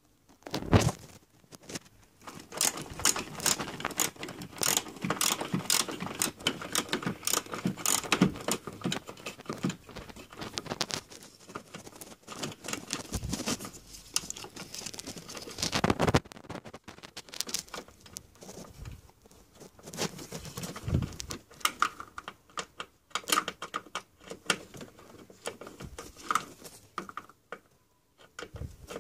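Hand work in a car's engine bay: irregular clicks, taps and rattles of tools and plastic parts being handled and screwed down while a washer pump and its hoses and wiring are fitted. The clicking is dense for the first half and sparser after a short pause.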